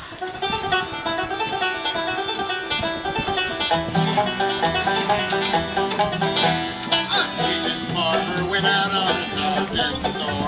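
Bluegrass band playing an instrumental passage: fast banjo and guitar picking, with lower notes filling in from about four seconds in.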